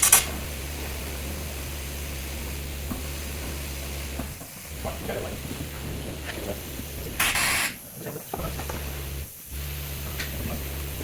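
Short blasts of compressed air hissing as air is blown through car air-conditioning lines to push out flushing fluid: one right at the start and a longer one about seven seconds in. A steady low hum runs underneath.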